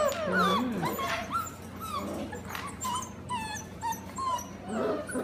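Several young Goldendoodle puppies whining, with many short, high, squeaky calls overlapping.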